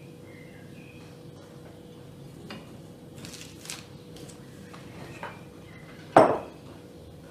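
A few light taps and clinks of a knife and dishes handled on a table, then a loud single knock about six seconds in as a bowl of strawberries is set down on a wooden cutting board.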